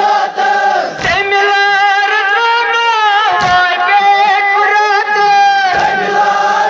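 Kashmiri noha, a mourning lament sung without instruments. A group of mourners chants in unison for the first second, then a single lead voice sings a long wavering line on its own, and the group comes back in near the end.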